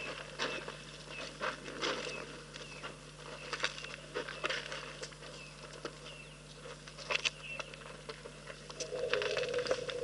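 African elephants moving over dry gravelly ground at the water's edge: irregular crunches and clicks, scattered and uneven.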